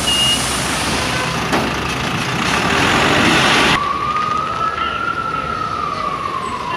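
Road traffic noise that cuts off abruptly, then a single siren wail rising slowly and falling away.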